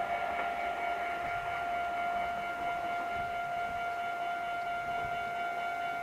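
Japanese railway level-crossing alarm ringing without pause, a steady high electronic tone.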